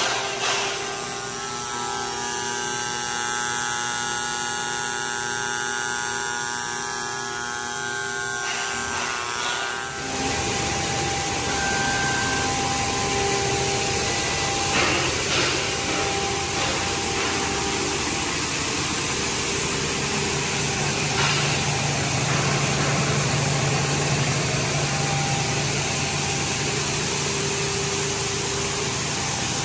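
Plastic recycling and pelletizing line running: a steady machine hum with several whining tones, changing about ten seconds in to a louder, noisier din of motors with a low drone.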